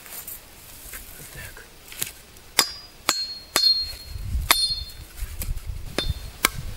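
Sharp wooden knocks, about seven spread over a few seconds, several with a brief ringing tone: dry sawn log sections clacking against each other as they are picked up and set upright.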